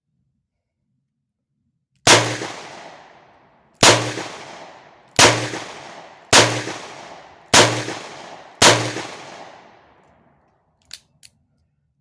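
Six shots from a Taurus 856 .38 Special revolver, emptying its six-round cylinder, each shot followed by a fading ring. They come about a second to a second and a half apart, then two light clicks follow near the end.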